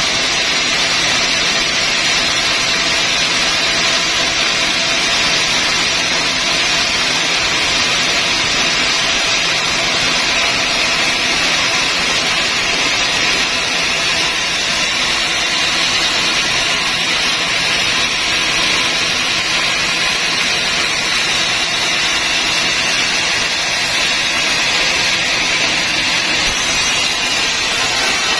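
Large vertical band sawmill running: a loud, steady mechanical whir and hiss from the blade and drive.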